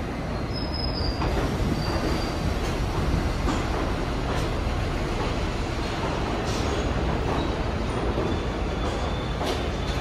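New York City Subway train running through the station: a steady rumble of wheels on rail, with a faint high wheel squeal about half a second in.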